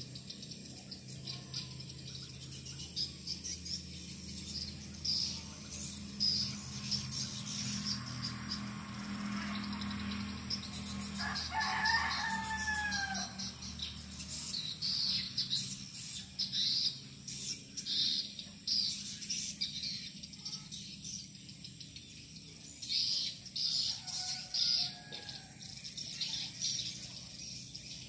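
Swiftlets twittering: short, high chirps repeating several times a second. A rooster crows loudly about twelve seconds in and again more faintly later.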